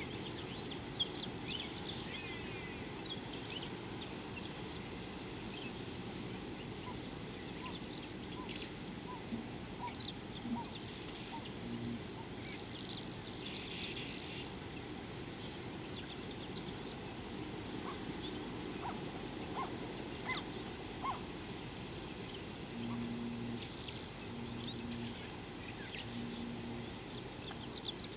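Wild birds calling: scattered high chirps and trills throughout, with three short low calls in a row near the end.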